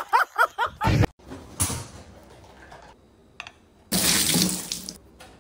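Water spraying hard out of an open dishwasher, a loud hiss lasting about a second near the end. A person's voice is heard briefly at the start.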